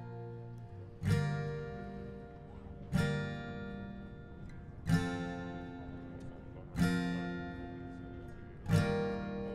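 Background music: slow chords strummed on an acoustic guitar, one about every two seconds, each left to ring and fade.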